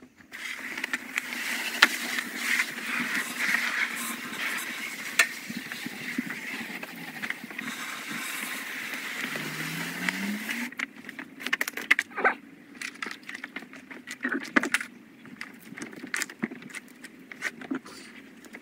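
Garden hose spraying water onto a motorcycle trike, a steady hiss that cuts off about ten seconds in, followed by scattered clicks and knocks.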